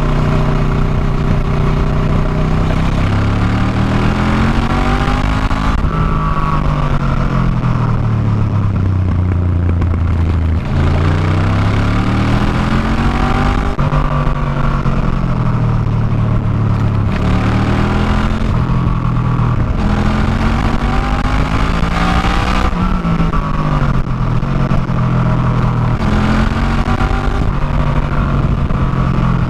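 On-board sound of a motorcycle engine repeatedly accelerating and easing off, its pitch climbing and falling several times, over steady wind and road noise.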